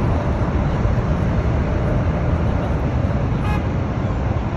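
Steady, loud roar of a Boeing 777's twin turbofan engines as the airliner lands.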